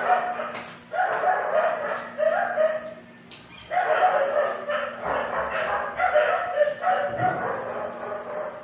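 A dog vocalizing in a string of drawn-out calls, each about a second or less, with short gaps between them.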